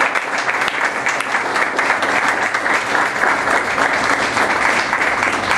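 An audience applauding: many hands clapping at once in a dense, steady patter.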